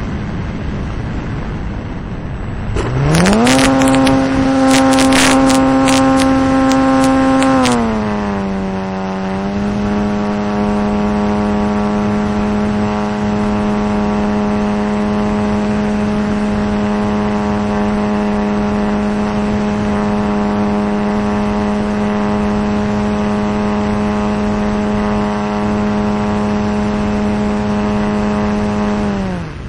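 A radio-controlled T-28 Trojan model plane's motor, heard from on board. About three seconds in it throttles up sharply to full power for takeoff, with a quick run of sharp clicks during the loud stretch. Near eight seconds it eases back to a steady cruising drone, and it is throttled down just before the end.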